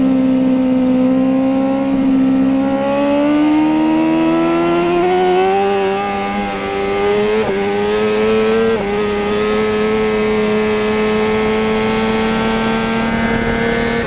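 BMW S1000RR HP4's inline-four engine heard onboard, holding steady revs through a corner, then pulling hard with revs climbing. Two quick upshifts break the note about seven and a half and nine seconds in, and it keeps climbing in the next gear.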